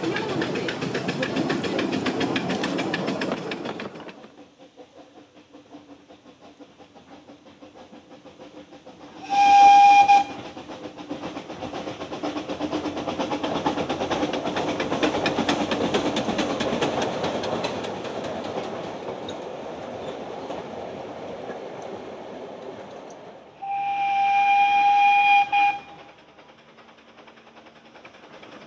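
Narrow-gauge Bagnall steam tank locomotive hauling a passenger train. It opens with loud steam hissing from the cylinders, which stops suddenly a few seconds in. About nine seconds in the steam whistle gives a short, single-pitched blast, followed by the engine working past with its carriages rattling over the rails. Near the end the whistle sounds again, a longer blast of about two seconds.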